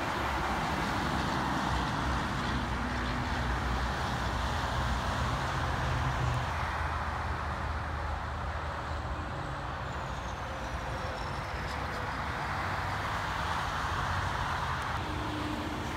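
Steady highway traffic: the tyre noise of cars and trucks passing at speed, with a low truck engine rumble that is stronger in the first half and eases off after about seven seconds.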